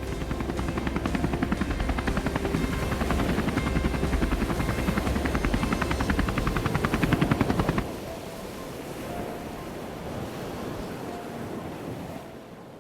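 A small engine or motor running with a fast, even chopping pulse for about eight seconds, then dropping to a quieter, steadier sound.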